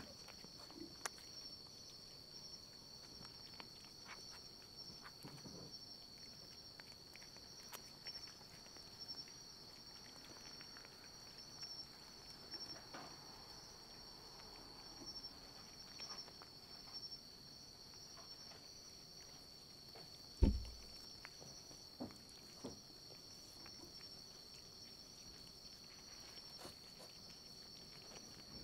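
Cats moving about a room: scattered soft taps and knocks, with one louder thump about twenty seconds in, over a steady high-pitched whine.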